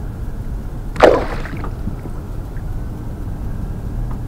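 A fish released back into the lake with one short splash about a second in, over a steady low rumble.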